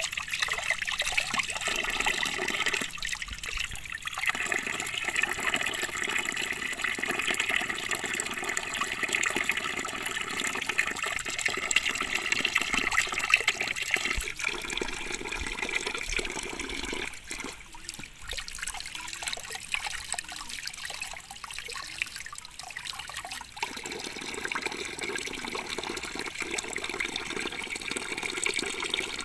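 Steady splashing of water pouring from a split-bamboo spout onto stones and over hands rinsing meat in the stream.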